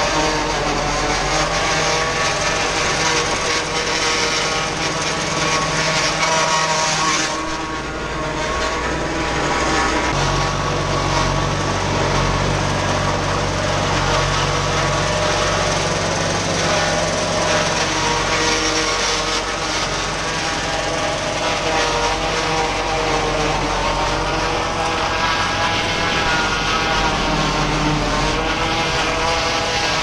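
New Holland TN70DA tractor running under load, driving a Sip Vihar 40 one-row corn chopper through its PTO as it cuts standing corn and blows the chopped silage into the trailer. A steady mechanical drone with a low engine hum, dipping briefly about seven seconds in.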